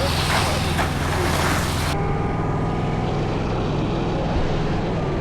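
An engine running steadily at an even speed, with an abrupt change in the sound about two seconds in.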